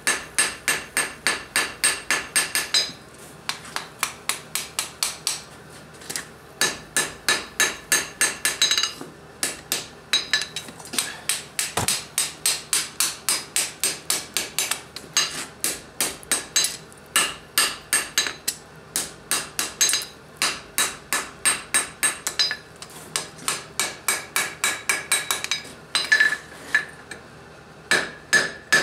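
Hand hammer striking hot square steel bar on an anvil in fast runs of blows, about four a second, broken by short pauses, with a bright ring from the anvil at each strike. The blows are forge welding two scarfed pieces into a square corner and then working the corner.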